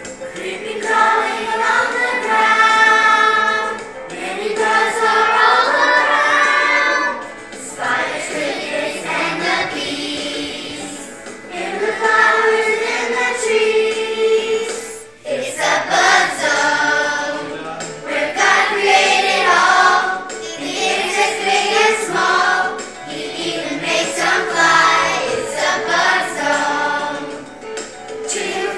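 A group of young children singing a Bible-school song together, in phrases of held notes with short breaks between them.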